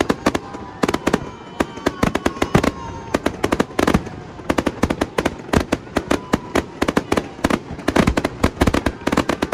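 Aerial fireworks going off in a rapid, irregular string of sharp bangs and crackles, several a second.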